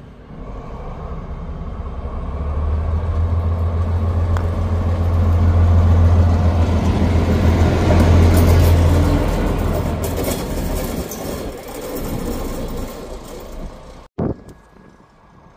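DB class 218 diesel-hydraulic locomotive running past at close range: a deep engine drone that swells to its loudest about halfway and then fades as the locomotive moves away. The sound drops off suddenly about a second before the end to a much quieter engine noise.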